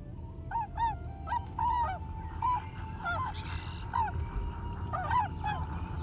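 A flock of large birds giving repeated goose-like honks, short calls coming two or three a second and overlapping, over a steady low rumble.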